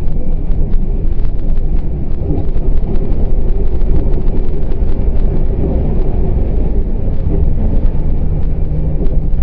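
Hurricane-force wind buffeting the microphone: a loud, steady low rumble shot through with constant crackling.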